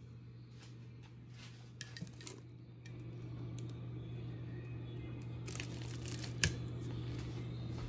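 Faint clicks and rustles over a steady low hum, with one sharp click about six and a half seconds in.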